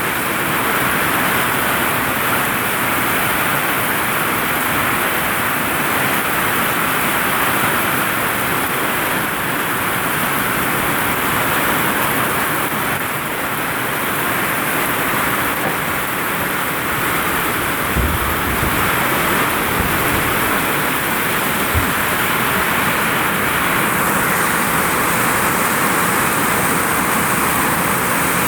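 Heavy rain pouring steadily onto a vinyl roof, a dense unbroken hiss. A few brief low thumps come about two-thirds of the way through.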